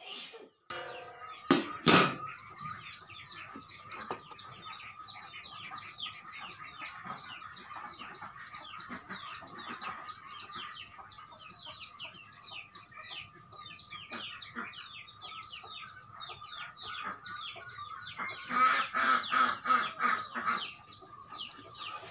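Chickens calling continuously in the background, a dense run of short high peeps, with louder clucking for about two seconds near the end. Two sharp knocks about a second and a half and two seconds in, from the amplifier's sheet-metal cover being handled as it comes off.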